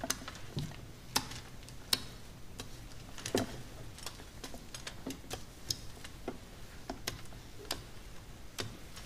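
Irregular light taps and clicks, one or two a second and of uneven strength: paintbrushes dabbing paint against window glass.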